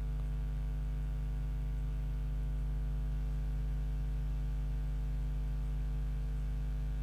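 Steady electrical mains hum with a stack of buzzing overtones, unchanging throughout, with no other sound over it.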